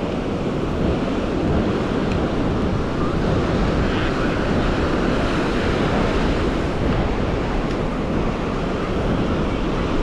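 Ocean surf breaking and washing up on a sandy beach, a steady rushing noise, with wind buffeting the microphone.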